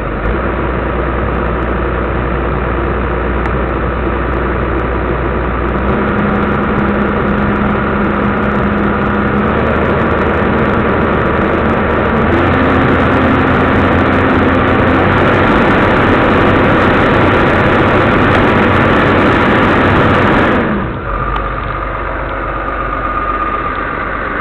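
Caterpillar 320C excavator's six-cylinder diesel engine running during warm-up, heard from inside the cab. Its pitch steps up twice and it grows slightly louder, then it drops back suddenly near the end.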